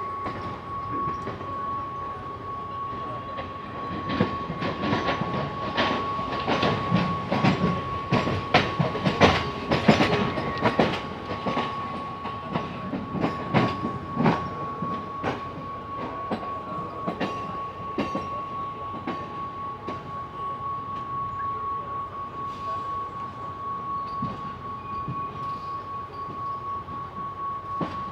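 Mumbai suburban local electric train running, heard from its open doorway. The wheels clatter over rail joints, loudest and busiest for about ten seconds a few seconds in, over a steady high whine.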